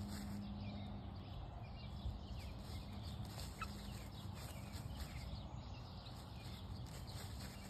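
Young hens softly clucking and chirping as they forage, with scattered light rustles and scratches in dry leaf litter. A faint steady low hum runs underneath.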